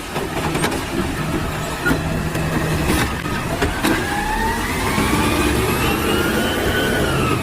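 Motor vehicle engine running, its pitch rising slowly over the last few seconds as it speeds up.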